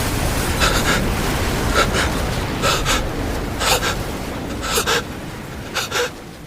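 A person gasping for breath in heavy, ragged pants, about one a second, over a deep rumble that slowly dies away.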